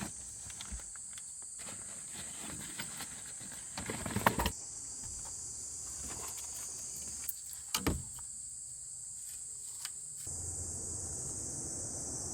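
Steady high-pitched chorus of insects, with a couple of short knocks about four seconds in and again near eight seconds.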